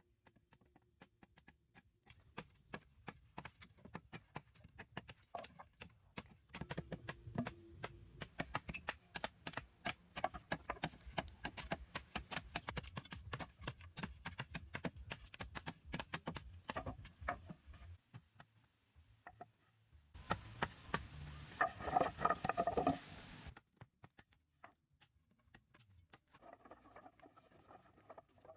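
Rapid light knocks and taps, many a second, then a louder burst of scraping, rushing noise about three seconds long, two-thirds of the way through.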